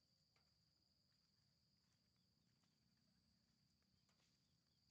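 Near silence, with a faint, steady, high-pitched insect trill.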